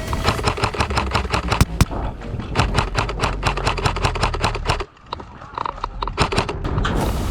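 ICS CXP MARS Komodo airsoft electric rifle fired in rapid semi-automatic shots, several sharp cracks a second. The level dips suddenly just before five seconds in, and quieter, sparser clicks follow.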